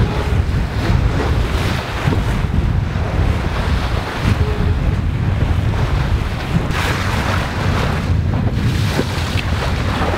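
Wind buffeting the microphone over the rush of water along the hull and wake of a sailing yacht under way. The water noise surges and eases irregularly.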